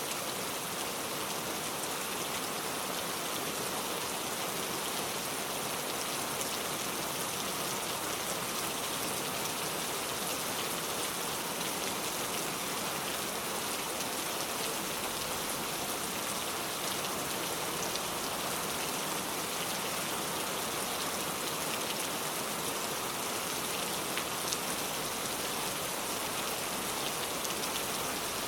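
Steady rain falling, an even hiss with fine drop patter on a surface.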